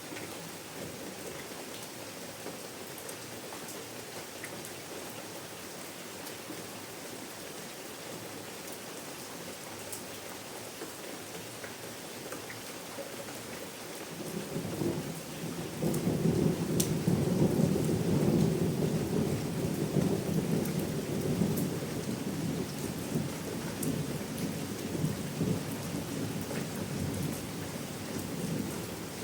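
Steady rain hiss with scattered sharp drop ticks. About halfway through, a low rolling rumble of thunder builds up, is loudest for a few seconds, then lingers under the rain.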